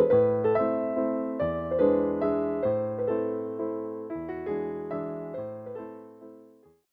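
Background piano music, a gentle melody of struck notes that fades out and stops just before the end.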